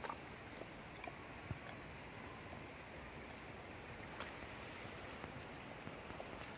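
Faint outdoor ambience: a steady soft rush with scattered small clicks and ticks, and a brief high chirp right at the start.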